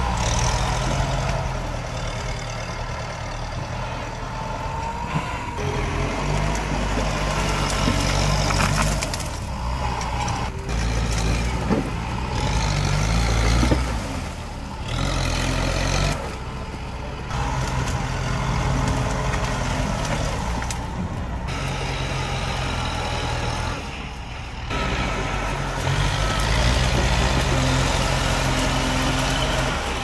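Farm tractor's diesel engine running under load as its front blade shoves tree stumps and brush, with branches cracking now and then. The engine sound breaks off and resumes abruptly several times.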